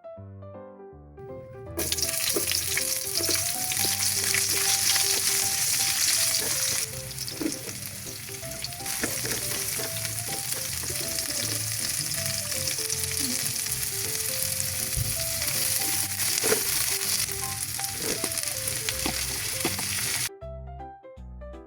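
Food frying in hot oil in a pan, a loud steady sizzle that starts about two seconds in and stops shortly before the end, easing for a couple of seconds in the middle. Light background music plays throughout.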